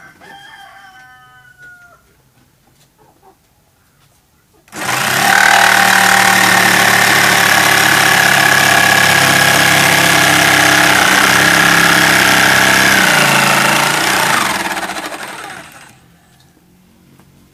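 Electric jigsaw cutting through plywood: it starts about five seconds in, runs steadily with a high whine for about ten seconds, then winds down and stops.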